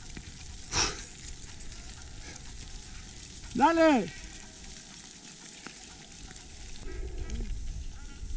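Steady hiss of wind on the microphone and loose scree shifting underfoot, with a single sharp knock about a second in and a short shout of "dale" about four seconds in.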